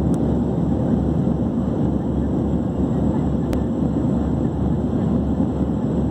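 Steady cabin noise of an Airbus A321 in its climb, heard inside the cabin: the jet engines and airflow make an even, low rumble, with two faint ticks.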